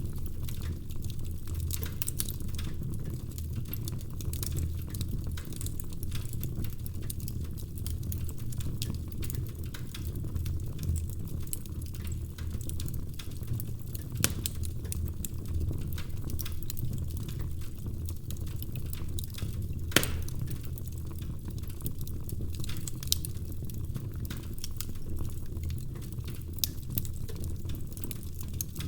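Log fire burning, with a steady low rumble and frequent small crackles. A sharp pop about two-thirds of the way through stands out above the rest.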